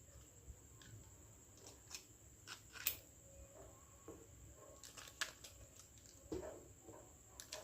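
Faint, scattered clicks and taps of small miniature toy kitchen pieces being handled, with a sharper tick about three seconds in.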